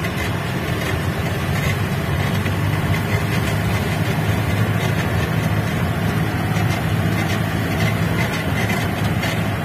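Off-road jeep's engine running steadily as the vehicle drives along a rough lane, heard from inside the cab.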